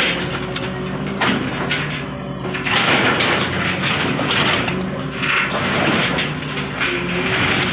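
Long-boom LiuGong excavator working: its diesel engine runs steadily under load while repeated rushing, scraping surges come and go about once a second.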